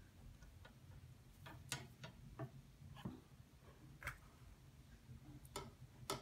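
Faint, irregular small clicks and ticks of monofilament fishing line and a metal swivel being handled as a knot is tied and pulled tight.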